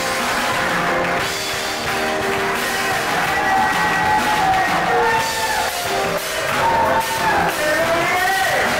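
Live worship music: voices singing over keyboard accompaniment, with held chords and a melody that moves up and down in the second half.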